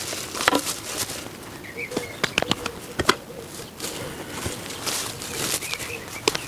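Garden fork levering into soil and the branches of a blueberry bush rustling as it is dug out, with irregular scrapes and knocks. Small birds chirp now and then in the background.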